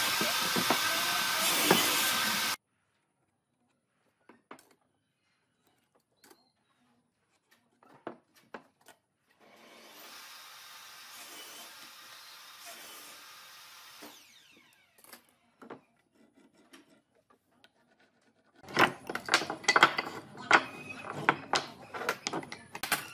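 A power tool running, cut off abruptly a couple of seconds in. Then a long quiet stretch with a few faint clicks and a spell of soft hiss. Near the end, a quick, loud run of knocks and taps on wood.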